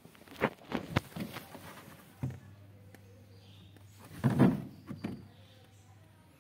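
Handling noise: several sharp knocks and scuffing rustles as the phone is moved and bumped against wooden furniture, a group in the first second or so and a louder cluster about four seconds in, over a faint low steady hum.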